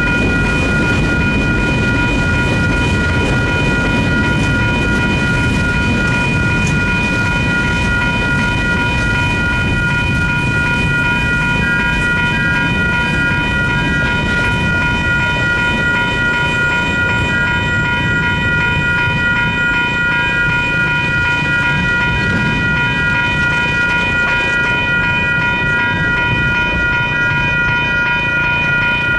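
Railroad crossing's WCH Type 2 electronic bell ringing steadily over the rumble and clatter of freight cars rolling past. The last car clears about halfway through, and the rail noise thins while the bell keeps ringing.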